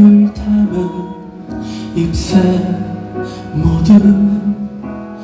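A man singing a slow ballad live over instrumental accompaniment, in phrases of long held notes.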